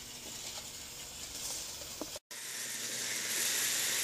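Steady high hiss of HO-scale model trains running on their track. About two seconds in it cuts out for a moment, then comes back louder.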